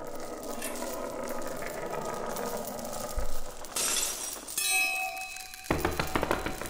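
Algorithmic sample-based composition from a Max/MSP patch: randomly triggered, repeated and reverberated found-sound samples, from a bank that includes stick beads and metal. A dense, scratchy texture gives way to a short noisy burst near the middle, then a brief held cluster of ringing tones, then a rapid run of clicks and rattles near the end.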